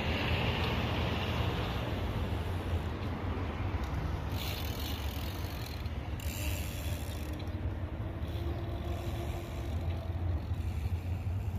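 Fishing boat engine running steadily with a low rumble, over a wash of noise, with two brief bursts of hiss around four and six and a half seconds in.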